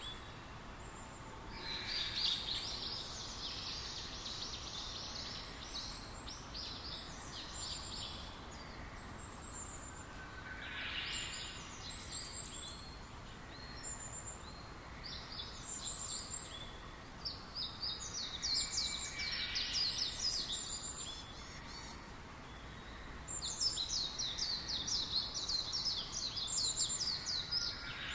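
Songbirds chirping and trilling in quick runs of high, short notes that come in clusters every few seconds, over a steady background hiss.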